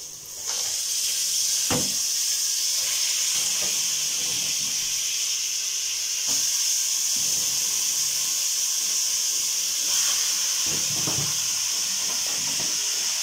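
Raw chicken pieces sizzling as they go into hot ghee with fried onion and spices: a steady hiss that starts about half a second in, with a few faint knocks as more pieces are put in.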